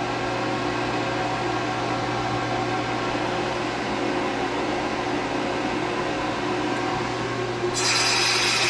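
Steady hum of a Fanuc Robodrill CNC mill running its machining cycle. A louder hiss comes in near the end.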